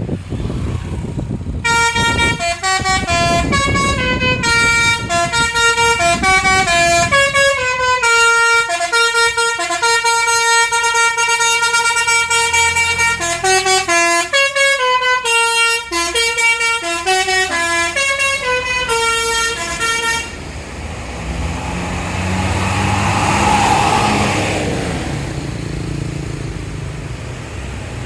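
Tour bus's telolet basuri horn playing a tune of quick, changing notes for about eighteen seconds. Then a passing vehicle swells and fades.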